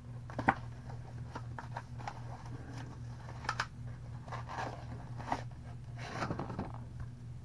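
Packaging of a cardboard model kit being opened and handled: scattered scrapes, rustles and small clicks.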